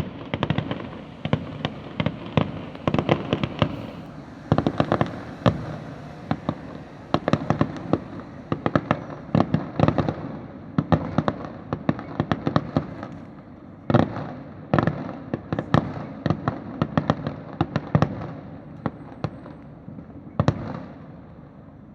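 Fireworks bursting in a long run of sharp bangs, often in quick clusters, with one especially loud bang about 14 seconds in; the bangs thin out near the end.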